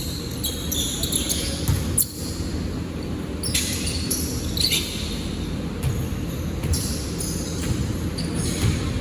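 Basketball game on an indoor court: the ball bouncing on the floor, with repeated short high-pitched squeaks of sneakers, in a reverberant hall.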